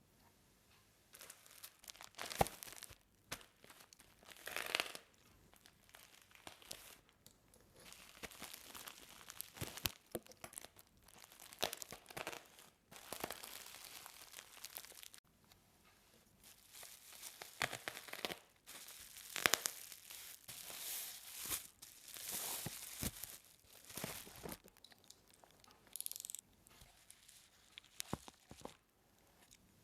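Phone case and screen protector packaging being opened by hand: plastic and paper crinkling and tearing in irregular bursts, with scattered sharp clicks and taps.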